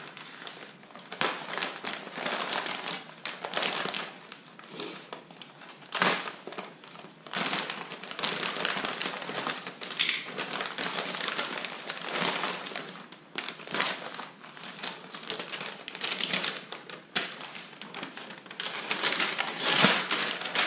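Clear plastic packaging bags crinkling and rustling as they are slit open and handled, with small clicks, then a stiff protective paper sheet rustling as it is pulled off a mud flap, the loudest rustle coming shortly before the end.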